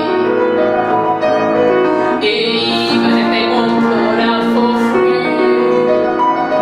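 A woman singing a cabaret song in full voice, holding long notes, accompanied by live piano.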